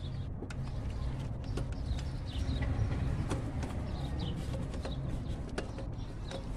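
Scattered light clicks and knocks of hands working at the alternator's dirt-packed plastic wiring connector, pressing its release tab to unplug it, over a steady low hum.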